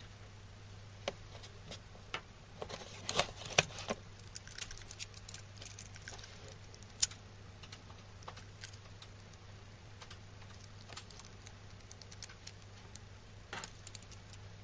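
Handling noise from a steel phone watch with a link bracelet and a small plastic Bluetooth earpiece being turned over in the hands: scattered clicks and taps, with a brief flurry of clattering about three seconds in and single sharp clicks near the middle and the end. A faint steady low hum runs underneath.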